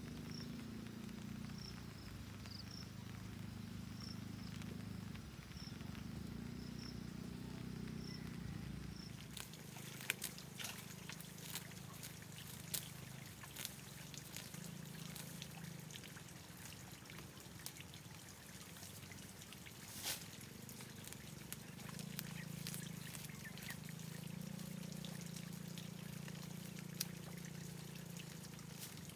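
Outdoor ambience with a steady low hum and a high chirp repeating a little more than once a second. From about nine seconds in, bamboo stakes and dry sticks click, knock and snap as they are pulled up from a garden bed, with a few louder cracks.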